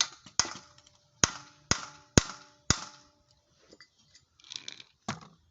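A hammer striking a socket to drive it onto a stripped, rusted nut: about six sharp metal blows in the first three seconds, each ringing briefly, then a single blow near the end.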